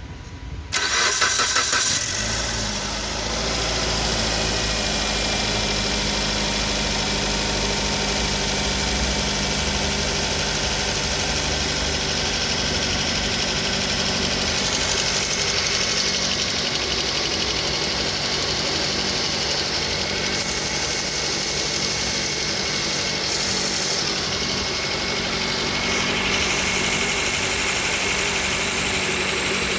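Suzuki SX4 engine cranked by the starter and catching about a second in, then settling into a steady idle with the knock (стук) that the owner is recording it for.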